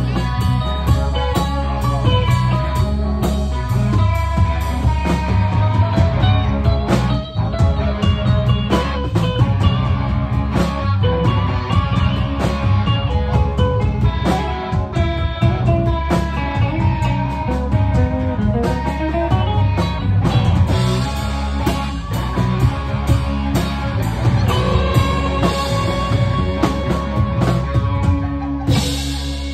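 Live blues-rock band playing: electric guitars through amplifiers over bass guitar and drums.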